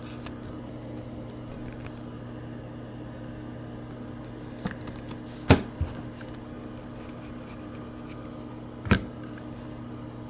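A steady low hum, with faint rustling and two sharp knocks about three seconds apart, from trading cards and foil packs being handled on a tabletop.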